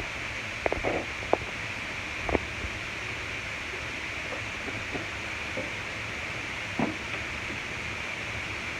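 Steady hiss and low rumble of kitchen background noise, with a few short light knocks in the first few seconds and one more near the end.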